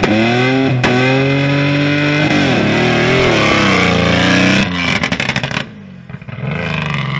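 Supercharged 3.7 L V6 engine of a Nissan Navara offroad race truck revving hard under acceleration, its pitch rising, breaking briefly about a second in at a gear change and climbing again. Near the end it drops off sharply and fades as the truck pulls away.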